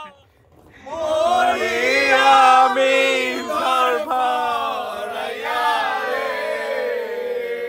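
A group of men singing together, with long held notes, starting about a second in.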